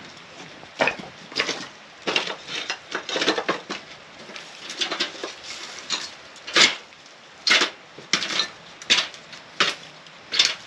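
Metal clanking and tapping from a zinc gutter being worked into place by hand: a run of sharp knocks and clatter, irregular at first, then coming about once a second in the second half.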